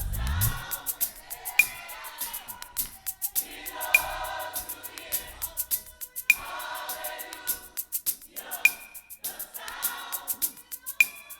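Gospel choir singing in phrases of a few seconds, over a steady sharp beat.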